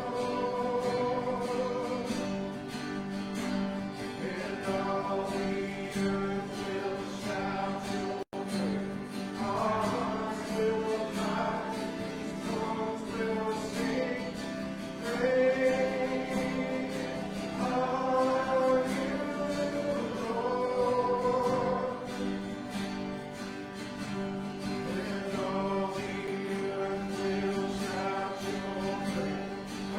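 A church congregation singing a worship song together, with instruments accompanying. The sound cuts out for an instant about eight seconds in.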